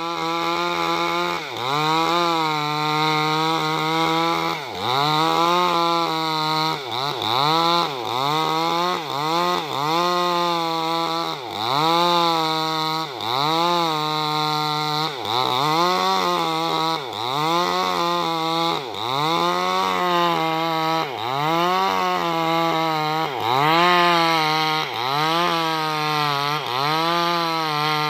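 New West 588 chainsaw running near full throttle while cutting merapai timber. Its engine pitch dips and recovers about once a second as the chain bites into the wood.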